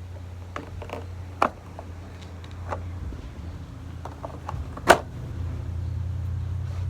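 Scattered clicks and knocks of hands working on the window air conditioner's casing and clips, the loudest a sharp knock about five seconds in, over a steady low hum.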